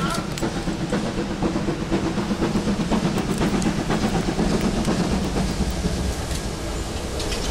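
Steam locomotive approaching with a train of coaches, its exhaust beating in a quick regular rhythm, with short clicks from the wheels on the track.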